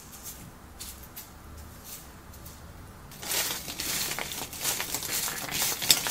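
Raw sugar faintly sprinkling onto crisp fried bread-crust sticks, then from about three seconds in, hands tossing the crusts on a paper towel: a dense crinkling of paper and dry, crunchy scraping with sharp clicks.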